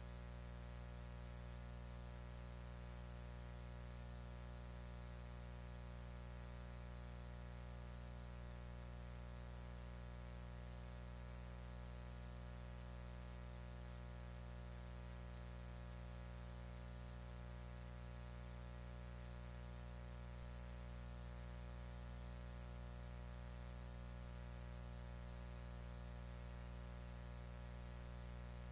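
Faint, steady electrical mains hum and buzz, unchanging throughout, with a low drone and many evenly spaced overtones.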